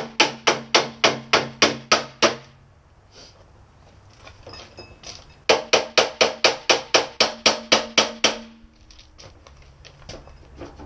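Hammer blows on a metal joint of a go-kart's roll bar, tapping it loose: two quick, even runs of about four blows a second, each a few seconds long with a pause between, and a low steady ring from the metal under the blows.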